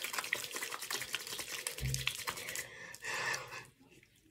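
Wet, soapy hands rubbing together to work facial cleanser into a lather: a dense, fast wet crackling that fades near the end as the hands move to the face.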